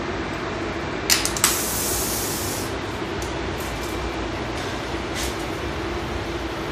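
Compressed-air paint spray gun triggered: a couple of sharp clicks, then a short burst of hissing air about a second and a half in, with a few fainter short bursts later, over a steady background hum.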